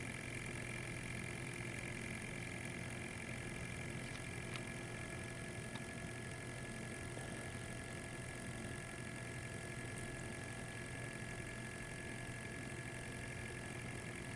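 Riken FI-21 gas indicator's built-in sampling pump running steadily, a low hum with a faint high whine, as it draws a gas sample from the anesthesia vaporizer output.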